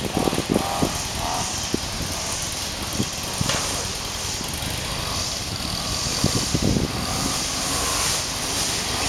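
Steady outdoor background noise, an even hiss and rumble, with a few soft knocks and rustles.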